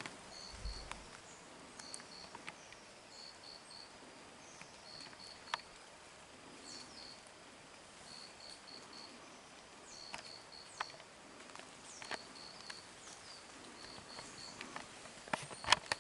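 Faint insect chirping: short high notes in groups of two or three, repeating about once a second, over a steady background hiss, with a few sharp ticks now and then.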